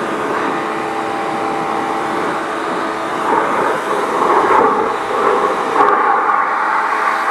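Pressure washer running with a steady motor hum, its water jet hissing against the bumper and the wheel and tyre and onto wet pavement. From about three seconds in the spray gets louder and splashier as it works over the wheel.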